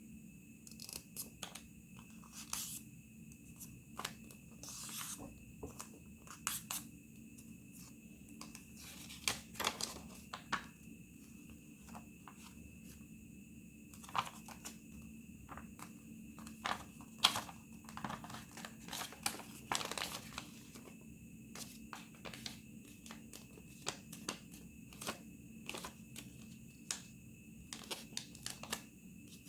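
Origami paper being handled and folded by hand: irregular rustles, crinkles and sharp little creasing clicks, over a faint steady hum.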